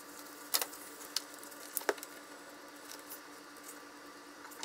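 Soft rubbing and a few light taps and rustles from a paper towel wiping a stainless gas stovetop and a book being handled, over a faint steady hum. The taps cluster in the first two seconds.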